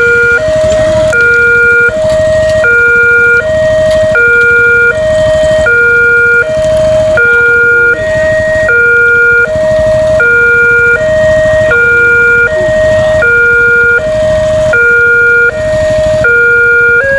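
Railway level-crossing warning siren sounding a loud two-tone hi-lo alarm, switching between a lower and a higher tone about every three-quarters of a second, over a low rumble. The uploader describes this crossing's siren as unusual and faulty.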